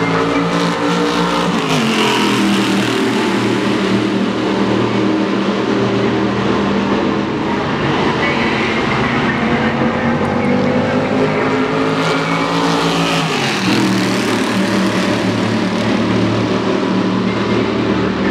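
6200cc stock race car's V8 exhaust at racing speed. The engine note drops sharply twice, about two seconds in and again near fourteen seconds, as the car slows for the corner, and between the drops it climbs steadily under acceleration.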